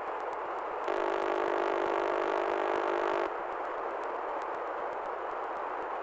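A steady, pitched tone held for about two and a half seconds, starting about a second in and cutting off suddenly, over a steady hiss.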